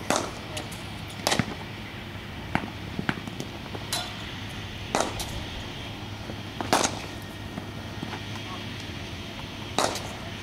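Sharp cracks of cricket bats striking leather balls in practice nets, about seven knocks at irregular intervals a second or two apart.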